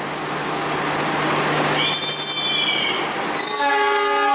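Railway station platform noise with a steady low hum, a high squeal of about a second around two seconds in, then a train horn sounding about three and a half seconds in and held past the end.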